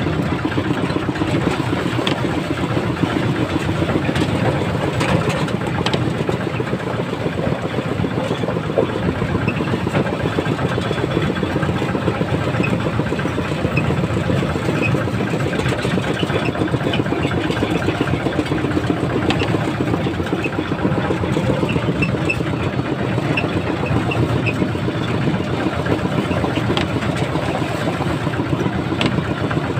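A small motorcycle engine running steadily at an even cruising speed, heard from on the moving bike.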